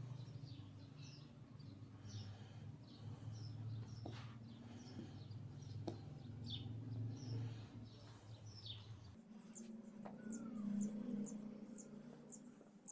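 Small birds chirping over and over in the background, high and short, the calls getting higher after about nine seconds in. Under them runs a low steady hum that cuts off about nine seconds in, with a few faint taps as pieces of boiled potato are cut by hand into a glass bowl.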